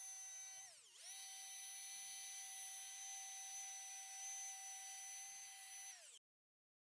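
Electric die grinder whining steadily at high speed, its pitch dropping briefly about a second in as it is loaded, then recovering. About six seconds in the whine falls and cuts off abruptly.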